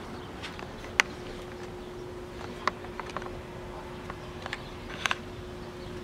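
A few faint, sharp clicks and taps of a small screwdriver working the proprietary security screw at the bottom of a Ring Video Doorbell Pro faceplate, the loudest about a second in. A steady faint hum lies underneath.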